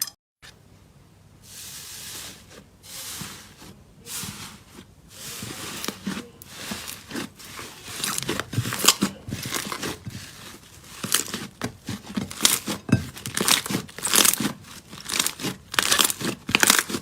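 Slime being squeezed and kneaded by hand: soft squishy swells at first, then dense crunchy crackling and popping that grows louder from about halfway through.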